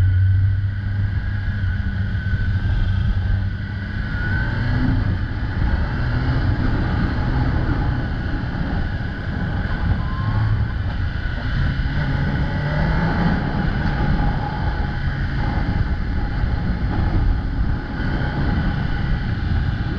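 Kawasaki ZX-10R inline-four engine running while riding under way, its pitch rising and falling gently with the throttle over a steady rush of noise.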